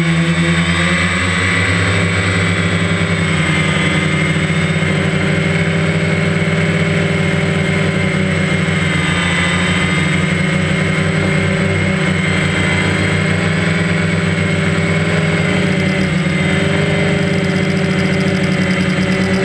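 DJI Phantom quadcopter's motors and propellers buzzing steadily in flight, picked up by the camera mounted on the drone: several steady tones that waver slightly in pitch over a rushing hiss.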